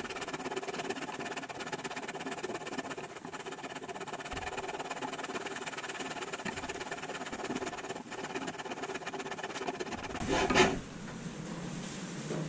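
Hand fretsaw cutting through wood with quick, even strokes, fretting excess material off the tip of a carving before it is rasped. About ten and a half seconds in there is a louder knock, and then the sawing stops.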